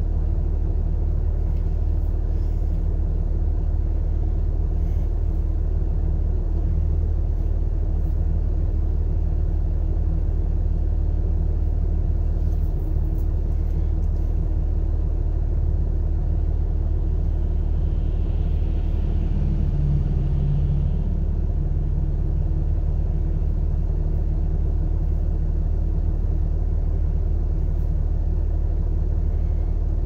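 Vehicle engine idling steadily, heard from inside the cab as a low, even hum. A slightly louder hum swells briefly about twenty seconds in.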